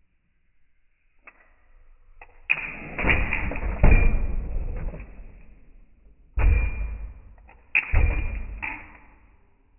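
A '62 A-arm lowrider hopper bouncing on its suspension, its back bumper banging down hard. There are two runs of loud bangs, about three each, each bang dying away.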